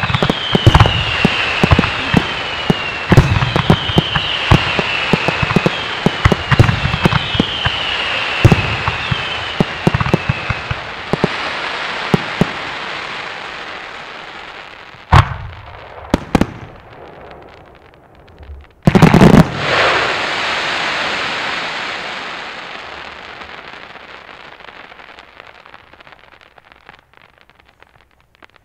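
Consumer fireworks finale: a dense volley of bangs and crackle with whistles that fall in pitch, repeating about once a second, for the first ten seconds or so. The volley then thins to a few single heavy bangs, the loudest about two-thirds of the way in, and a crackle that slowly fades out.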